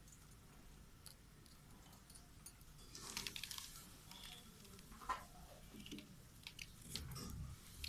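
Budgerigars pecking and cracking seeds: scattered faint clicks and crunches, busiest about three seconds in and again near the end.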